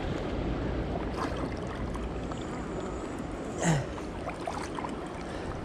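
Steady rush of turbulent water around a kayak running down a weir chute, with one brief louder sound a little past halfway.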